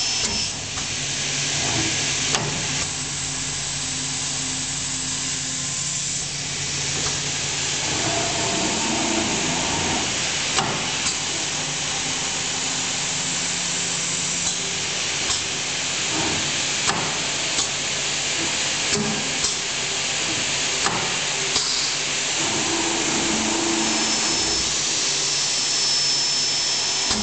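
MG GAA-350 automatic aluminium cut-off machine with a CNC drilling and tapping unit running through its cycle: a steady hum and hiss of motors and compressed air. From about a third of the way in, sharp clicks of its pneumatic actuators sound every second or two.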